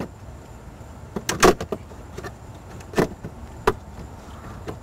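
Plastic dashboard trim piece being pulled loose by hand, its retaining clips snapping and knocking: a quick cluster of clicks about a second and a half in, then single sharp snaps at about three seconds and shortly after.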